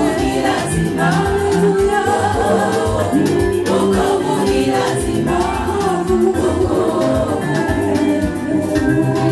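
Gospel choir singing an upbeat song over instrumental backing with a steady, repeating bass line.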